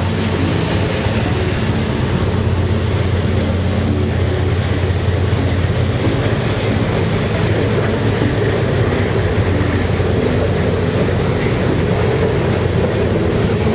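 CSX mixed freight train passing close by: the diesel locomotive's low engine drone as it goes by at the start, then a steady rumble of freight car wheels on the rails.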